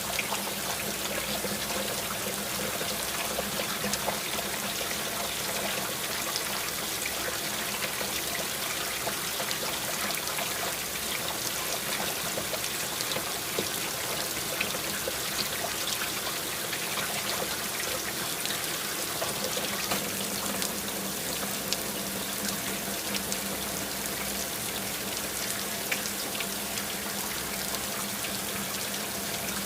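Steady running water, an even trickling and pouring that stays level throughout.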